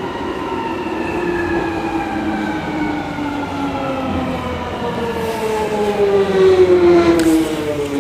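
Jubilee line 1996 Stock Underground train running in the tunnel, its traction motor whine a stack of tones falling steadily in pitch as the train slows, over the rumble of the wheels. A short click about seven seconds in.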